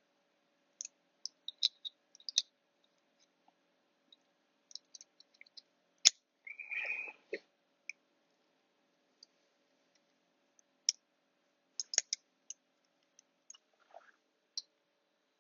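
Scattered light clicks and taps from handling a valve spring and a valve spring compressor, with one sharp knock about six seconds in followed by a brief scraping.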